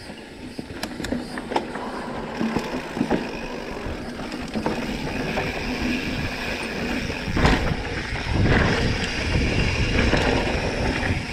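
Electric mountain bike riding along a sandy dirt singletrack: tyres rolling, the bike rattling and clicking over bumps, and wind rumbling on the handlebar-mounted microphone. It grows louder through the ride, with a sharp knock about seven seconds in and heavier rumble after it.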